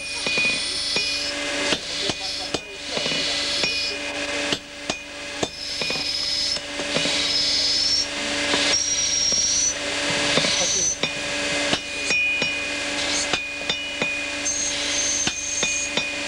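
Hammer and sledgehammer blows on a red-hot iron horseshoe on an anvil, with a handled punch held on the shoe and struck. Sharp metallic strikes come at an uneven pace of one or two a second, each leaving a ringing tone.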